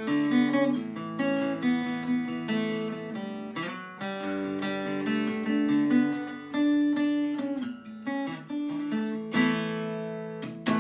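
Acoustic guitar strumming chords, the notes ringing on between strokes, with one hard strum about nine seconds in.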